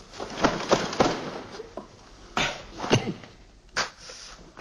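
A man's short, strained grunts and gasps mixed with sharp slap-like knocks, about six irregular bursts in a few seconds.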